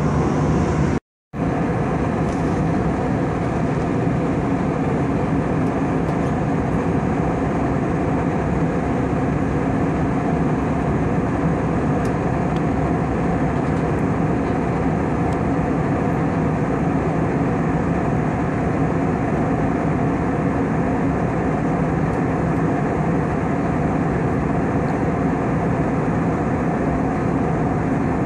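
Steady cabin noise inside an Airbus A320 airliner at altitude: the drone of the jet engines and the rush of air past the fuselage, with a low steady hum. It drops out for a split second about a second in.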